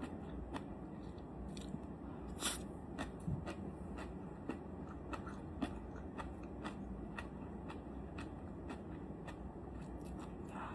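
A person chewing crunchy jellyfish head close to the microphone, with crisp crunches about twice a second.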